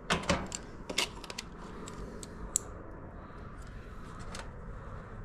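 A few light clicks and knocks from small tools or parts being handled, most of them in the first second and a half, then single clicks about midway and near the end.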